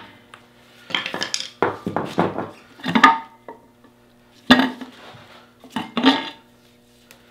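Metal clanking and scraping in about five short bursts as the finned rear cover of a differential is worked loose from its housing.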